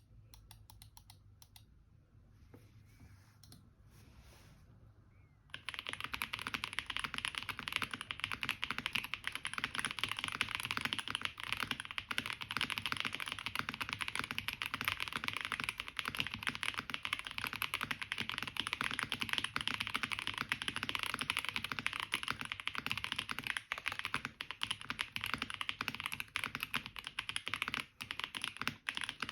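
Typing on a Jelly Epoch 75% mechanical keyboard built with Boba U4T 68g tactile switches, a polycarbonate plate, foam and GMK keycaps. There are a few faint sparse sounds at first, and fast continuous typing begins about five seconds in.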